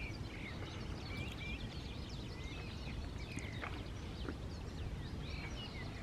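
Small birds chirping and whistling in short, scattered notes, over a low steady rumble.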